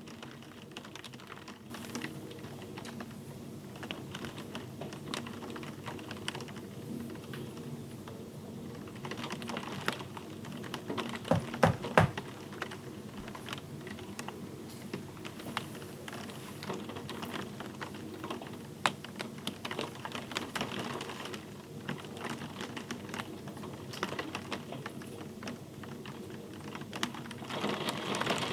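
Typing on a computer keyboard: a steady run of quick key clicks, with a few louder knocks about eleven seconds in.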